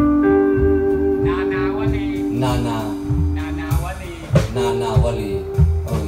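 A live rock band playing electric guitar, bass guitar and drum kit, with long held notes over a steady bass and drum beat.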